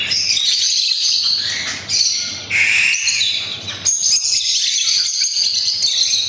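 A flock of young chickens, Kadaknath and desi chicks, peeping together in a continuous, high-pitched chorus of overlapping chirps.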